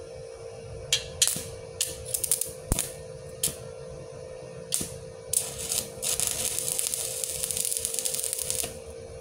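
Stick-welding arc from a MOSFET inverter welder set to 80 amps: several short crackles as the electrode is struck against the steel, then the arc catches and crackles steadily for about three seconds before cutting off suddenly. The arc sound is a little rough.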